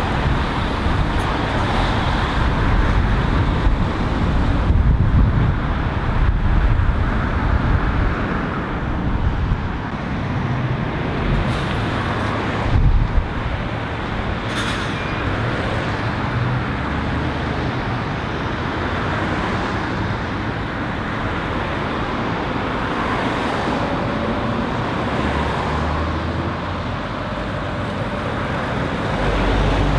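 Road traffic at a roundabout: diesel lorries and cars passing, the lorry engines rumbling as they pull round, with a brief loud knock about halfway through and a heavier lorry growing louder near the end.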